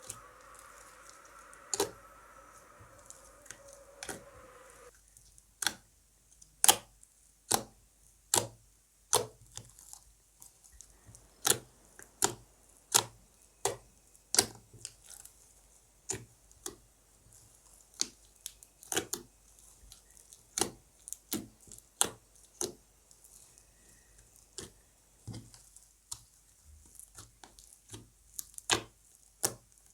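Slime being squished and folded by hand, giving sharp pops and clicks of trapped air at an uneven pace of one or two a second.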